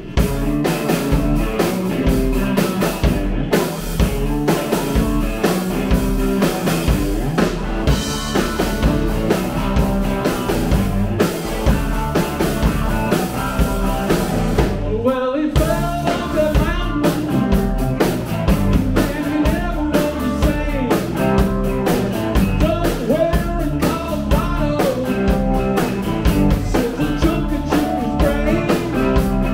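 Rock band playing live: two electric guitars, electric bass and a drum kit. About halfway through there is a short stop, after which a lead vocal comes in.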